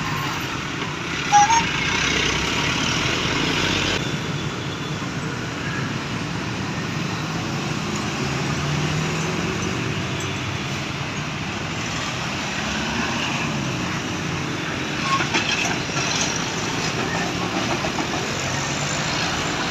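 Roadside traffic noise: vehicles passing on a road, louder for a moment about a second in and again around fifteen seconds in.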